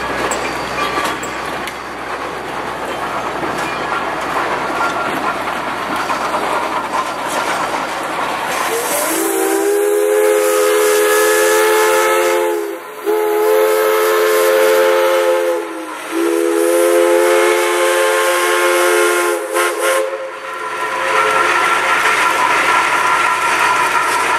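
A train's cars rolling past on the rails, then the Climax geared steam locomotive's chime whistle blows three long blasts, each a chord of several tones that sags slightly in pitch as it closes. The rolling of the train carries on after the whistle.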